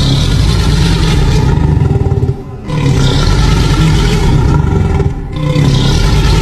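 Loud dinosaur roar sound effects, one long roar after another, each breaking off briefly about two and a half and five seconds in.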